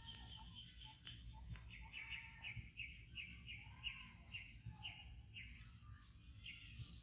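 Faint bird calls: a run of short, evenly repeated chirps, about two a second, beginning about two seconds in, over a low rumble.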